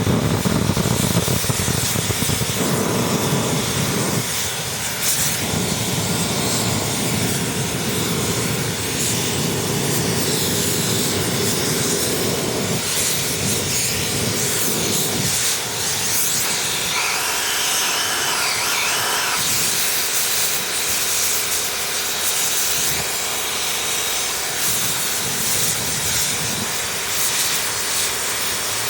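Steady rushing hiss of air and flame blowing through an aluminium two-stroke silencer as the unburnt oil and carbon clogging it burn out from the inside. A deeper rumble under the hiss drops away about halfway through.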